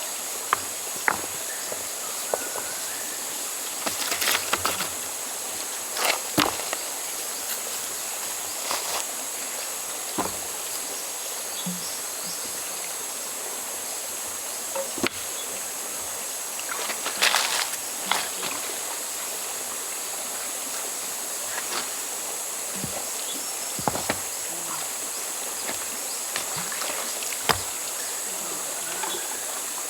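Steady, high-pitched insect chorus over the even rush of a river, broken by scattered short clicks and knocks and two brief louder splashy bursts.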